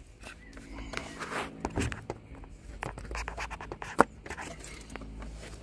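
Irregular scraping and clicking of hands and tools working around the engine, with one sharp click about four seconds in.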